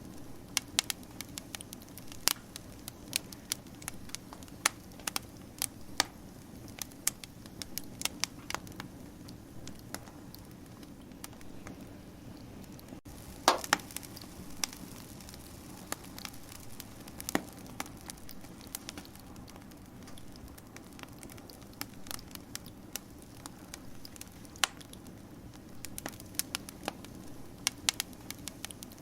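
Campfire crackling: irregular sharp pops and snaps over a steady low background, with the loudest pop about thirteen seconds in.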